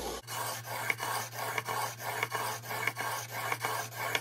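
Magnus Stinger broadhead blade's steel bevel, clamped in a roller sharpening jig, being rasped up and back on 320-grit sandpaper in an even rhythm of about three strokes a second. The strokes grind the bevel flat to sharpen it.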